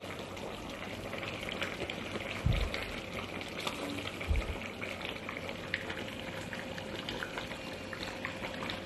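Chicken in chilli sauce bubbling and sizzling in a wide pan on the stove, a steady hiss with many small pops. Two short low thumps come in the first half.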